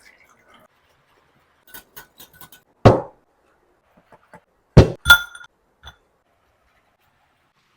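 Kitchenware being handled: a few light clicks, then a sharp knock about three seconds in and two more close together near five seconds, the second ringing briefly with a glassy clink.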